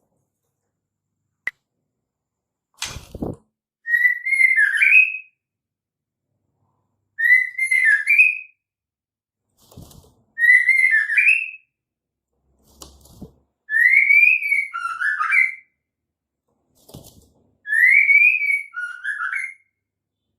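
Female white-rumped shama calling: five short whistled phrases, each rising and falling, spaced about three to four seconds apart. Short low thuds come just before several of the phrases.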